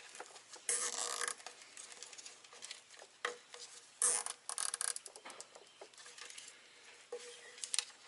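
Hands working the truck's wiring harness and zip ties: scratchy rustling and light plastic clicks in several short bursts, the biggest about a second in and about four seconds in.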